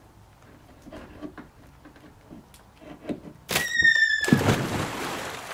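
Faint knocks and clatter from handling a rotten nav light base as it is worked off a wheelhouse roof. About three and a half seconds in comes a sudden short squeal, falling slightly in pitch, then about a second of loud rushing noise that fades.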